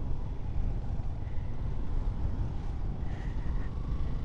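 Motorcycle engine running steadily on the move, with a low rumble of wind and road noise.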